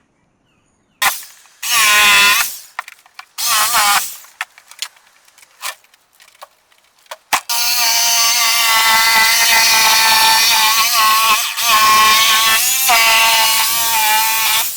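An electric power tool's motor, run in two short bursts and then for about seven seconds with a steady whine that dips in pitch now and then as it takes load.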